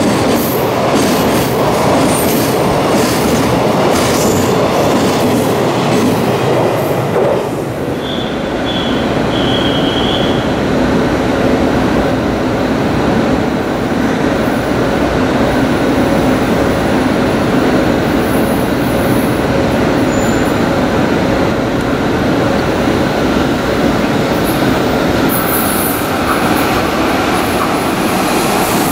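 Container freight train passing at speed, its wagons' wheels clattering over the rails in a dense, rapid rhythm. About seven seconds in this gives way to a JR Freight EF66 electric locomotive and its container train approaching: a steady rumble of wheels on rail with a low hum, and a few short high wheel squeals about eight to ten seconds in.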